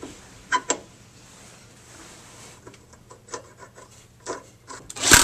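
Small metal clicks and rubbing as the grooved steel pulley is slid onto the alternator shaft by hand: two sharp clicks about half a second in, then scattered lighter ticks. A loud noise starts right at the very end.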